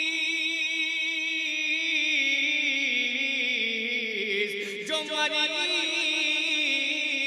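A man singing a devotional Urdu manqabat, drawing out one syllable in a long unaccompanied melisma. He holds the notes with a wavering vibrato, the pitch climbing slowly, dropping back about five seconds in, then climbing again.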